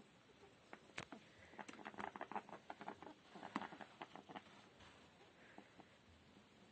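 Pet rat snoring: rapid crackling clicks with its breath, bunched about two to four seconds in, with a single sharper click about a second in. The rat is ill.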